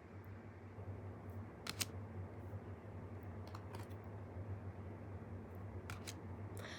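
A few light clicks of thin tarot cards being handled and turned over, in pairs about two seconds in and near the end, over a steady low hum.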